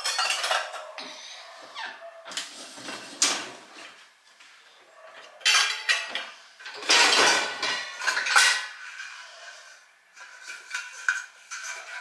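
Stainless steel bowls, plates and lids clattering and clinking against each other and the dishwasher's wire racks as they are handled, in several bursts. Near the end a steel piece rings with a lingering tone.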